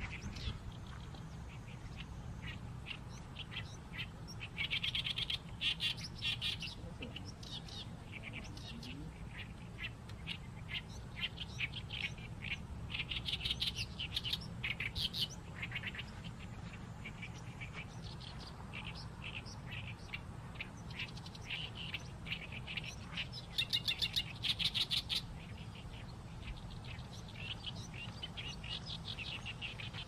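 Oriental reed warbler singing: long runs of rapid, repeated chattering notes in phrases a few seconds long, some stretches louder than others. A steady low background hum runs underneath.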